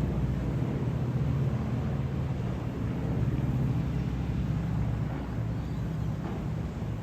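Aircraft engines droning overhead: a steady low rumble from a plane circling in a holding pattern.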